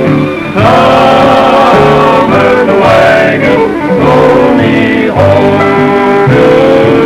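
Western string band music: guitars strumming over a steady plucked bass line, with sustained melody notes above.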